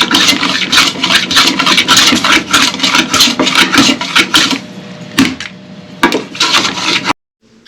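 Hand plane shaving the headstock wings of a maple ukulele neck flush, a quick run of rasping strokes that thins to a few separate strokes and then cuts off suddenly about seven seconds in.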